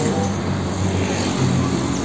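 Street traffic: a heavy diesel car-carrier truck's engine running, with tyre noise from passing vehicles and a motor scooter going by.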